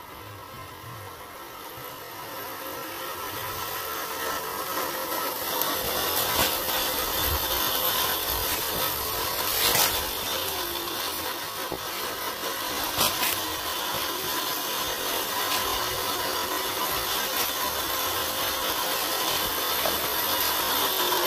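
A 1/10-scale RC crawler's electric motor and gearbox whirring steadily as the truck drives over a dirt trail. It grows louder over the first few seconds as the truck comes closer, with a few sharp clicks along the way.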